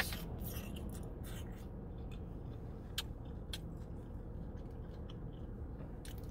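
Someone chewing a taco with closed mouth, giving a few scattered wet mouth clicks and smacks, over a steady low hum in a car's cabin.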